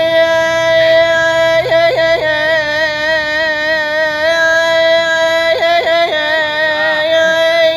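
A singer's voice holding one long high note, with vibrato through the middle and quick ornamental turns in pitch about two seconds in and again near six seconds.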